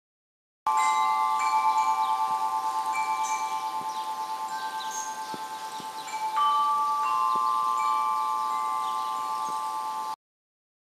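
Tubular wind chime ringing: several tubes sound together in a cluster of steady tones that slowly fade with a wavering beat, and are struck again about six seconds in. The ringing cuts off suddenly near the end.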